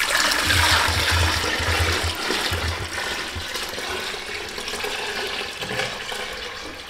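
Buttermilk pouring in a thick stream from a large metal pot into a plastic bucket, a steady splashing gush that slowly gets quieter. It is the buttermilk being drained off the freshly churned butter.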